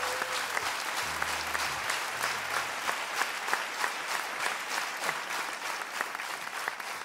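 Audience applauding: a dense clatter of many hands clapping, easing a little near the end.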